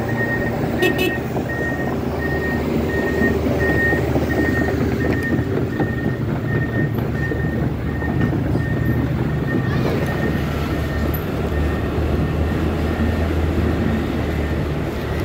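Motor scooter riding over a rough, uneven road, its engine and road noise running steadily. An excavator's travel alarm beeps repeatedly at about two beeps a second, fading out around ten seconds in.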